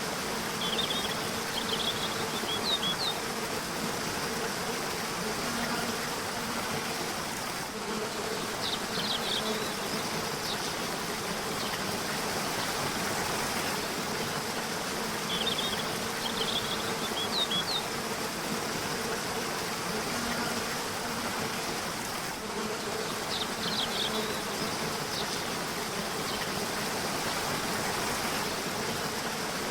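Steady rush of a river. A low buzzing hum comes and goes, and birds give short clusters of high chirps every few seconds.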